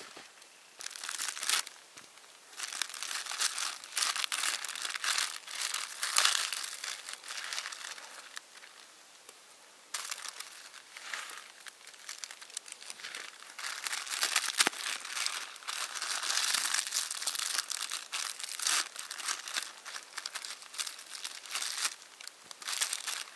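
Plastic food packet crinkling and rustling in the hands and being torn open, in uneven spells with a short lull about a third of the way through. One sharp click about halfway through.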